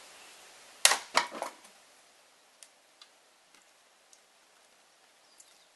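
An axe chops into a log about a second in, splitting firewood, with a second crack just after and a brief clatter of wood. A few faint knocks follow.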